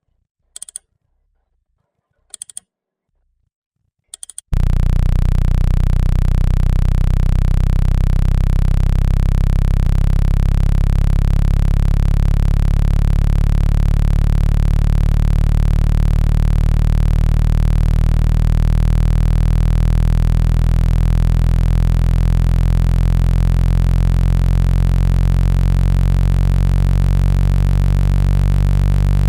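Three short blips about two seconds apart, then, about four and a half seconds in, a loud, steady, low-pitched electronic buzz with many overtones starts and holds. This is a water-ejection tone meant to vibrate a phone's loudspeaker diaphragm and push out trapped water.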